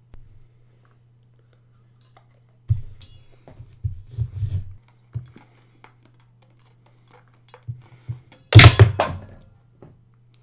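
A run of short thuds and metallic clinks, with a loud hit and decaying tail about eight and a half seconds in, over a faint steady low hum.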